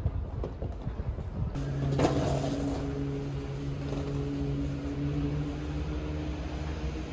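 Airliner cabin noise: a steady low engine rumble with a sustained hum of several tones, starting abruptly about one and a half seconds in after a few quieter, uneven knocks.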